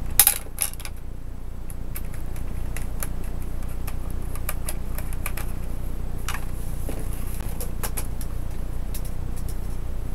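Scattered small clicks and taps of hands handling a laptop's parts and tiny screws, with a louder cluster of clicks just after the start, over a steady low hum.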